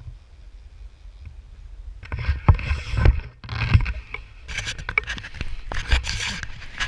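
Low wind rumble on the camera microphone, then from about two seconds in loud irregular scraping, rubbing and knocking: handling noise as a gloved hand and jacket fabric brush against a pole-mounted GoPro.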